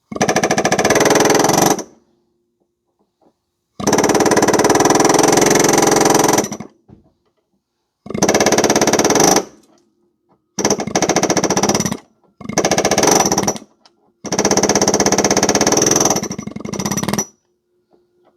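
Pneumatic air hammer chiselling at a rusted exhaust hanger on a muffler, running in six bursts of rapid hammering, each one to three seconds long, with short pauses between them, to knock the broken hanger and rust off.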